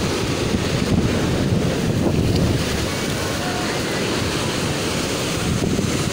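Rough sea surf breaking and washing against a seawall, with strong wind buffeting the microphone.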